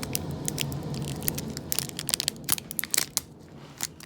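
Foil booster pack wrapper crinkling and crackling as it is handled, a rapid irregular run of sharp crackles that thins out toward the end.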